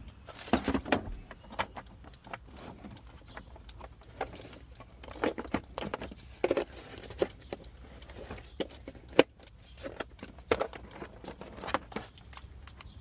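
Irregular clicks, taps and light rattles of small hard objects being handled, with a dozen or so sharper knocks spread through, over a faint low hum.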